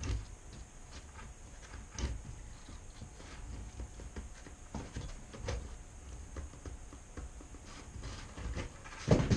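A utility knife shaving the edge of a vinyl floor plank, with the plank handled against the floor: faint scrapes and small clicks, then a louder knock near the end.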